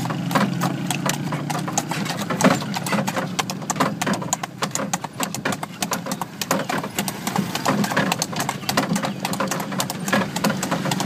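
Horse's shod hooves clip-clopping steadily on a paved road as it pulls a cart, over a low steady hum.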